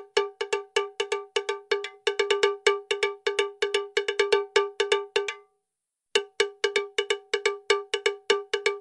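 Background percussion track: rapid, uneven strikes on a pitched percussion instrument, several a second, each ringing briefly. The strikes stop for about half a second a little past the middle, then resume.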